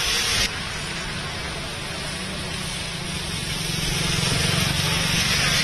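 Rain and traffic on a wet road: a steady hiss of rain and tyre spray, with a car's low engine hum growing louder toward the end as it approaches. The sound changes abruptly about half a second in.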